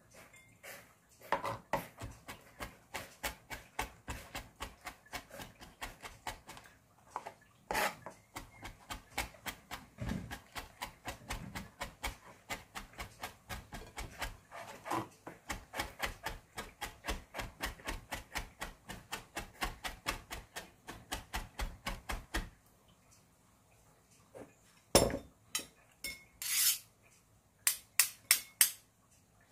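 Kitchen knife chopping on a cutting board, mincing ingredients finely: rapid, steady strikes about four or five a second for most of the time, a pause of about two seconds, then a few louder strikes near the end.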